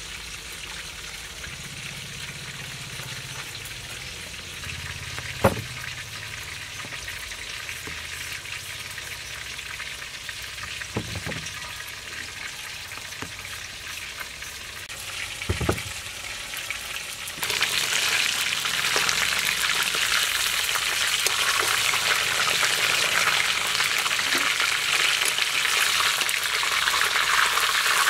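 Pieces of fish deep-frying in hot oil in a wok: a dense, steady sizzle that starts abruptly about two-thirds of the way in and is the loudest sound. Before it the sound is quieter, with a few sharp clicks.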